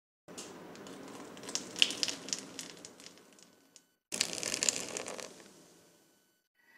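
Guinness stout foaming in a bowl, a crackling fizz of bursting bubbles. It comes twice, each time starting suddenly and fading away.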